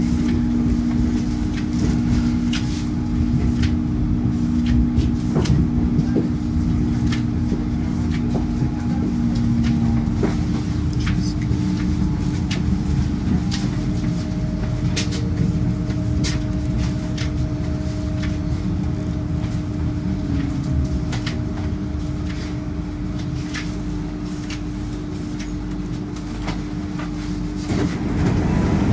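Inside a Koleje Śląskie PESA Elf electric multiple unit under way: a steady rumble of wheels on rails with a steady hum from the traction equipment, and many sharp clicks as the wheels run over the track through the station's points and joints. The running noise grows louder near the end.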